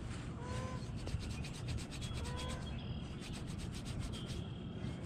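Close rubbing and rustling of hands and a jacket sleeve against the microphone as fingers press PowerBait dough around a fishing hook, with runs of fast fine ticking.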